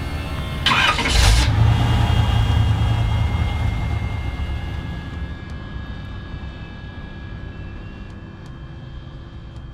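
1972 Chevy C10 pickup's engine starting: a short burst as it catches, then a strong low rumble that slowly fades away.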